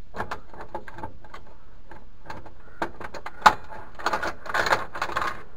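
Scattered clicks and knocks of hand tools and a plastic container being handled, with a sharp knock about three and a half seconds in as the loudest. Near the end comes about a second of metal spanners clinking together as they are rummaged through in a tool box.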